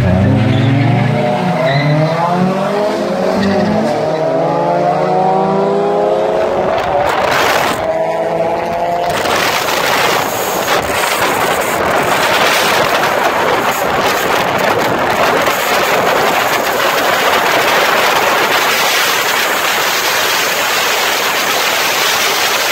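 Two Honda four-cylinder cars, a Civic with an R18 engine and a car with a B18, launching side by side from a standing start and accelerating hard. Engine pitch rises and drops back with each upshift for about the first nine seconds. After that a loud, steady rush of wind and road noise at speed takes over.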